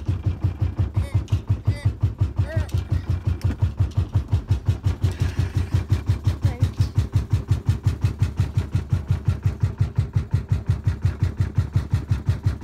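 A sailboat's auxiliary engine motoring at a steady speed, a low, even pulsing of about six or seven beats a second.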